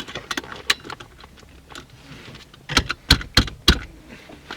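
Irregular sharp clicks and knocks like objects being handled, with a louder cluster of about four knocks roughly three seconds in.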